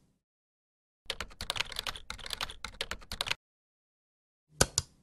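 Computer keyboard typing, a quick run of key clicks lasting a little over two seconds. Near the end come two sharp clicks in quick succession.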